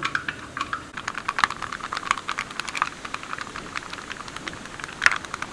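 Ratlam sev dough, made of besan, sizzling in hot oil as fresh strands are pressed into the pan: a steady hiss under a rapid, irregular patter of small pops, with one louder pop about five seconds in.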